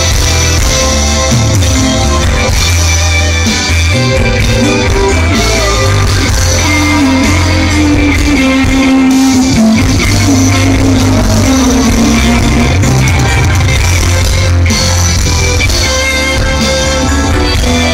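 Live pop-rock band playing loudly through a PA: electric guitars, bass guitar and keyboards, with a male lead singer.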